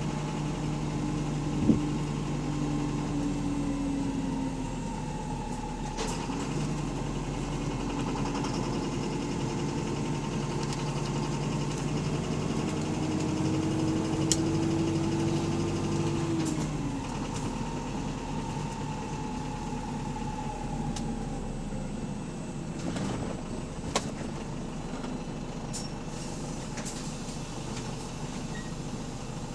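Bus engine running, its pitch rising and falling a few times as the bus drives, with a few sharp clunks; the uploader says this engine has a loud rod knock.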